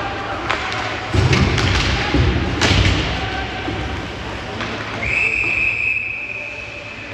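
Ice hockey play: sharp knocks and heavy thuds, typical of sticks, puck and players hitting the boards, then a referee's whistle blowing one long steady blast about five seconds in.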